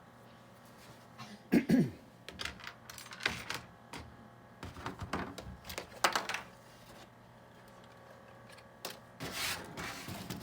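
Small hard-plastic RC truck body parts being handled and pressed into place: a run of irregular clicks and taps with a few louder knocks.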